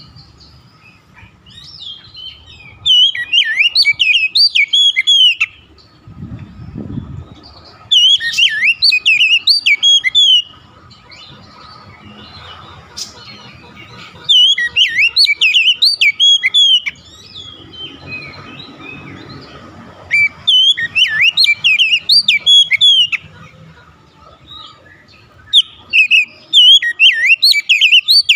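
Oriental magpie-robin (kacer) singing: five bursts of rapid, sliding whistled and warbled phrases, each two to three seconds long, with short pauses between.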